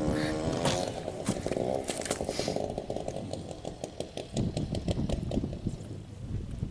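Spinning reel's drag buzzing as a hooked fish pulls line, its pitch wavering, then about two and a half seconds in a rapid run of clicks from the reel.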